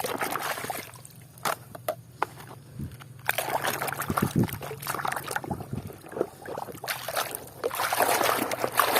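Water sloshing and trickling as a plastic toy gun is washed by hand, with a few light clicks and knocks of the plastic; it grows louder about three seconds in and again near the end.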